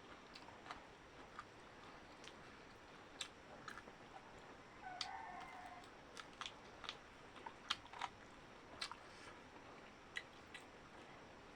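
Close-up mouth sounds of someone eating: chewing and wet lip smacks, heard as sharp clicks at irregular intervals. There is a brief faint hum about five seconds in.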